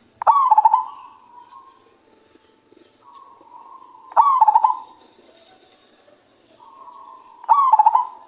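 Male zebra dove cooing: three phrases of rapid, stuttering coos about three and a half seconds apart, a softer drawn-out note leading into the second and third. Faint high chirps of other small birds sound between the phrases.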